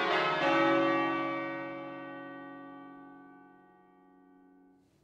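Church bells ringing, with a fresh stroke about half a second in, then the ring dying away slowly over about four seconds before cutting off abruptly near the end.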